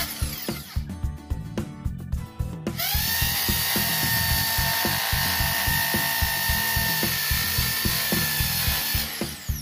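Corded impact drill boring into a wall: it runs briefly at the start, stops, then spins up about three seconds in and runs with a steady whine until it cuts off near the end. Background music with a steady beat plays underneath.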